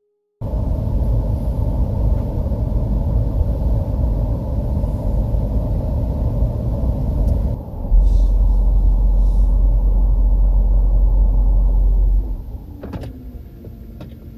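Nissan Ariya's climate-control blower running loud in the cabin, with a deep rumble beneath it for a few seconds. About twelve seconds in the air conditioning is switched off: the noise drops sharply with a click, and falling tones follow as the fan winds down, leaving a much quieter cabin hum.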